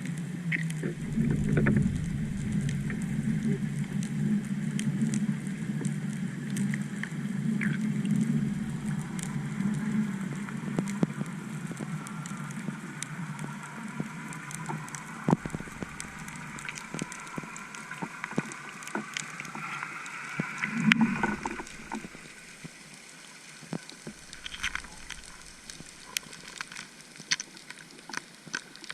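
Underwater recording of a boat's outboard motor and propeller: a steady whine of several tones that slowly rises in pitch, then fades about three quarters of the way through, with scattered sharp clicks throughout.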